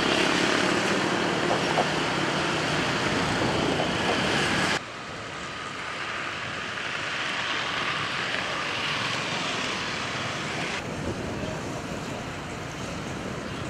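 Steady outdoor ambience of distant traffic and engines, loudest at first. It drops abruptly quieter about 5 s in and shifts again about 11 s in.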